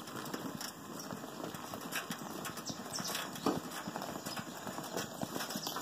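Wheelbarrow loaded with firewood being pushed over a concrete path: a continuous irregular clatter of the logs and barrow knocking as it rolls, with one sharper knock about three and a half seconds in.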